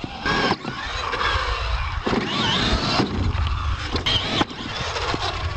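R/C monster truck's motor and gears whining up and down with the throttle as it drives over dirt, with a low rumble underneath and a few sharp knocks.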